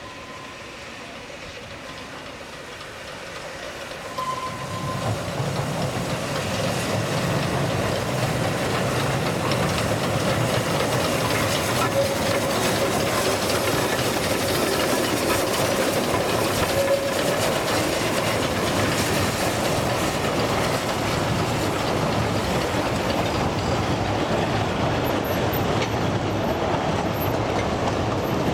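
Narrow-gauge steam train approaching and passing close by, its locomotive and carriages making a steady rumble and clickety-clack of wheels on the rails. It grows loud about four seconds in.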